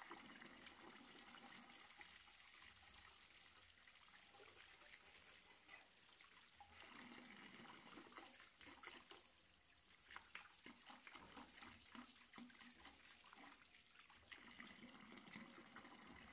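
Faint running tap water splashing into a steel bowl of water, with a rusty pruning-shear blade being scrubbed with a plastic brush under the stream to rinse it after a rust-removal soak.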